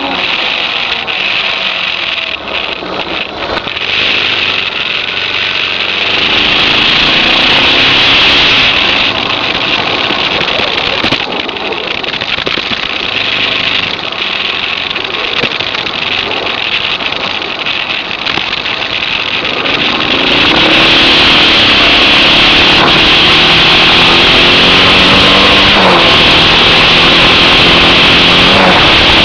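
Suzuki DR650's single-cylinder four-stroke engine running under way, with wind rushing over the microphone. About two-thirds of the way in it gets louder and the engine note climbs and drops back several times as the bike accelerates up through the gears.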